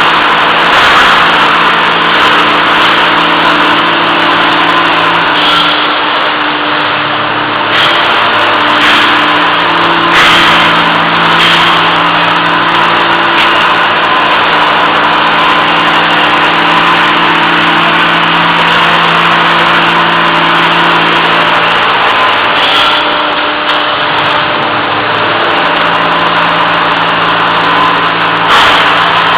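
Welded pipe forming and welding line running: a steady, loud machine noise with a low, even hum.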